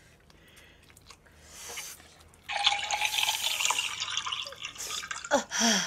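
Smartphone virtual-drink app playing a gurgling, draining liquid sound through the phone's small speaker as the phone is tilted to the mouth, starting suddenly about two and a half seconds in; it is likened to a toilet flushing.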